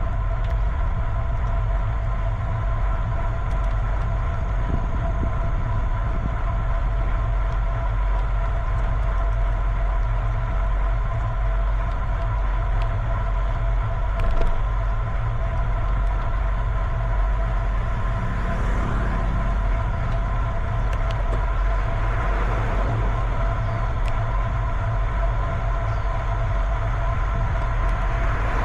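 Steady wind rumble on the microphone of a moving bicycle, with a constant hum of several tones; a single short knock about halfway through.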